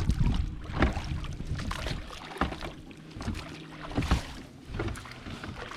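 Water splashing and sloshing around a small folding boat under way, with irregular thumps about a second apart.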